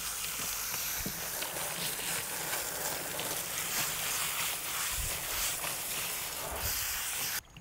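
Water spraying from a hose-fed foam cannon on its water setting, rinsing a soapy dog's coat and running off into a plastic tub: a steady hiss that cuts off suddenly near the end.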